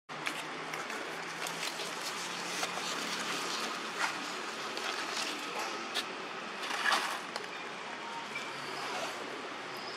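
Outdoor ambient noise: a steady hiss with a faint low hum under it, and a few light ticks and taps, the loudest about seven seconds in.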